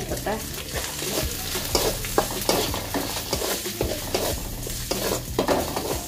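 Metal spatula stirring and scraping a spice paste frying in oil in a kadai: repeated scrapes against the pan over a steady sizzle.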